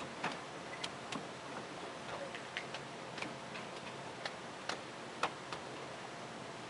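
Light, irregular clicking of a 7¼ inch gauge miniature train's wheels running over the rail joints at low speed, a dozen or so clicks in a few seconds, over a steady low rumble.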